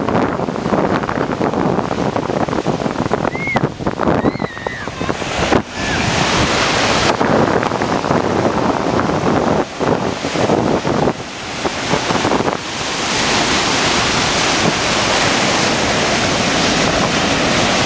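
Ocean surf breaking and washing in the shallows, with wind buffeting the microphone. The wash swells louder and hissier about two-thirds of the way through.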